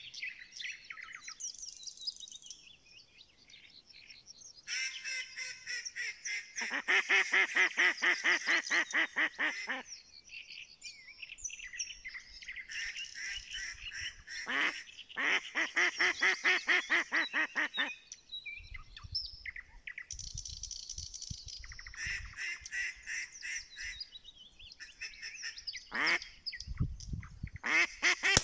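A hen duck quacking in long runs of rapid, evenly spaced calls, four runs in all, the loudest in the middle: a hen's calling to a drake and duck pair flying in.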